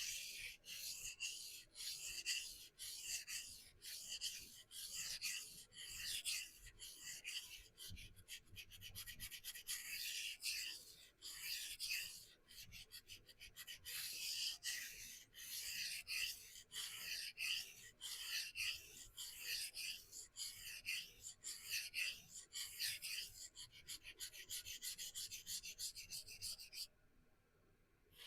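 A CPM-S30V knife blade stroked back and forth across a vitrified diamond sharpening stone in freehand passes: a rhythmic scraping of many short strokes, with a quicker flurry about eight seconds in, and the strokes stop near the end. The blade is being ground to even out a lopsided edge bevel and raise a burr.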